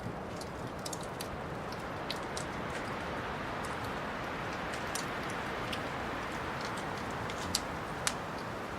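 Wood fire crackling: irregular sharp pops scattered over a steady hiss of burning logs.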